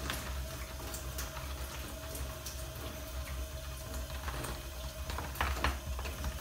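Wort boiling steadily in a BrewTools B80pro electric brewing kettle, with a steady low hum underneath. A foil hop bag crinkles several times as pellet hops are shaken into the kettle.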